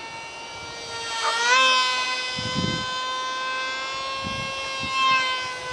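Micro RC flying wing's small electric motor and propeller whining at a high, steady pitch; the pitch rises about a second and a half in and then holds. Two brief low rumbles come underneath.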